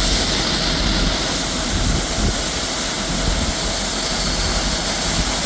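Tractor and grain cart running steadily while soybeans are unloaded into a truck, an even mechanical drone under a strong rushing hiss.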